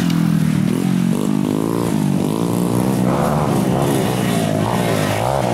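Trail motorcycle engines running and revving, their pitch rising and falling, with more than one bike heard over each other in the second half.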